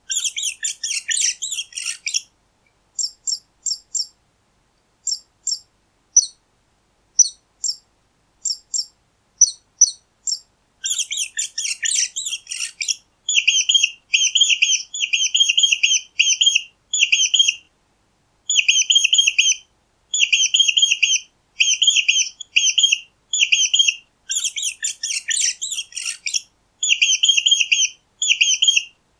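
Mice squeaking: short, high-pitched squeaks in quick runs. Scattered single squeaks fall between about three and ten seconds in, with dense flurries near the start, about midway and near the end.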